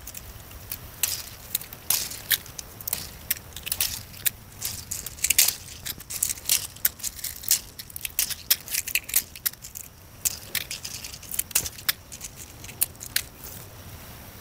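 Dry pigeon pea pods and stems crackling and snapping as they are stripped off the bush by hand, a quick irregular run of sharp clicks that dies away near the end.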